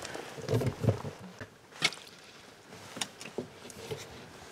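Irregular knocks and clunks of handling in a small boat, with the sharpest click about two seconds in.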